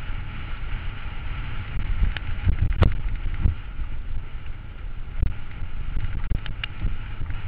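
Mountain bike riding over a rough, stony trail, picked up by a camera on the bike or rider: a steady rumble and wind buffeting on the microphone, with sharp knocks and rattles as the bike jolts over rocks, the loudest just under three seconds in.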